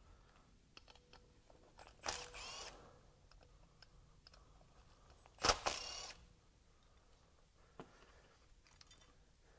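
Milwaukee FUEL brushless cordless drill running in two short bursts, about two seconds in and again about five and a half seconds in, its motor whine rising and falling each time as it turns the bolt of a valve spring compressor. The second burst is the louder, and a few light clicks of tool handling come between them.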